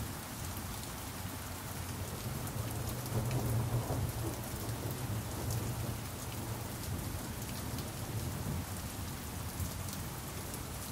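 Steady rainfall, a dense hiss of drops, with a low rumble underneath that swells about three to four seconds in.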